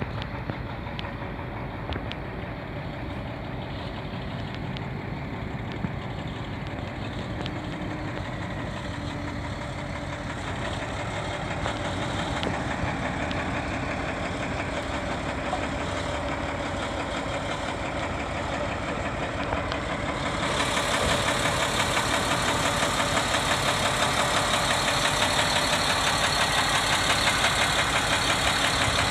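1999 Sterling boom truck's diesel engine idling steadily. It grows gradually louder, then jumps up sharply and turns brighter about two-thirds of the way through.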